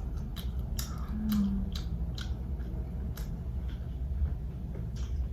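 Close-miked chewing of fried chicken tenders: a string of short wet, crunchy clicks, about two a second, over a steady low background hum, with a short low hum about a second in.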